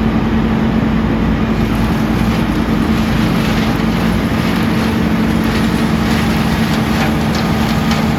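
Heavy land-clearing machine's engine running steadily at high speed: a loud, constant hum with a steady pitch and no change in load.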